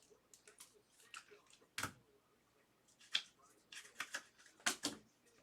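Trading cards and their plastic sleeves being handled: scattered light clicks and rustles, the loudest about two seconds in and a pair near the end.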